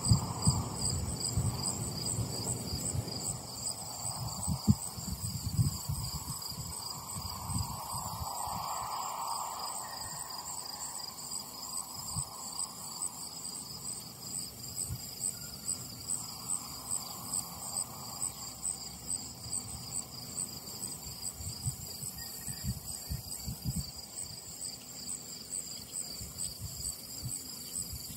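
A steady chorus of insects: a fast, pulsing trill at two high pitches. Low bumps and rumbles on the microphone come now and then, loudest at the very start.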